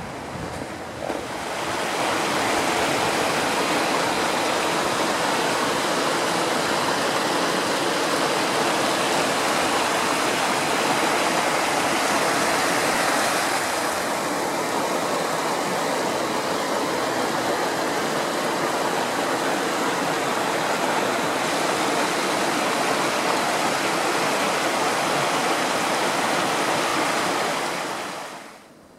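Rushing mountain stream: a steady, even rush of water that swells in about a second and a half in and fades away near the end.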